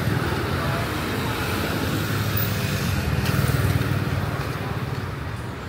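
Street traffic: passing vehicle engines and a steady road noise, the rumble swelling about halfway through and easing off near the end.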